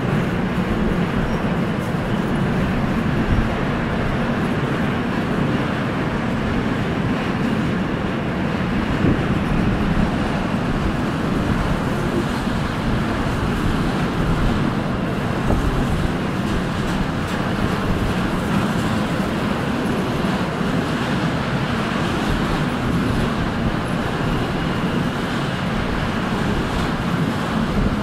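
Freight train of loaded flat wagons rolling steadily past on the rails: a continuous low rumble of wheels on track, with a few brief knocks.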